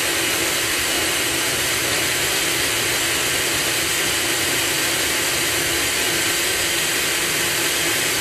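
Food processor running steadily, its blades chopping sun-dried tomato pesto in oil, a loud even whir with a steady hum.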